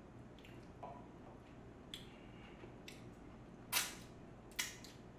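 Close-miked eating sounds of a person chewing a mouthful of omurice: small wet mouth clicks, then two louder short smacking sounds a little under a second apart, past the middle. A steady low hum runs underneath.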